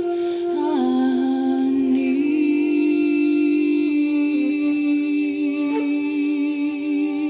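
Voices humming a slow wordless chant in long held notes that slide from pitch to pitch, with a steady, slightly wavering singing-bowl tone joining about two seconds in.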